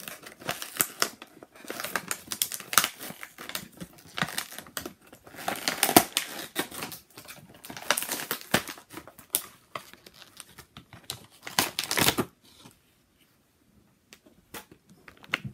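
Clear plastic toy packaging being pried and torn open by hand: quick, irregular crinkling, snapping and clicking of the plastic, dying down about twelve seconds in to a few faint ticks.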